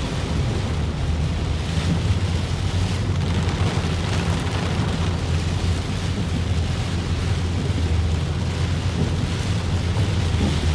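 Heavy rain falling steadily, with a steady low hum underneath.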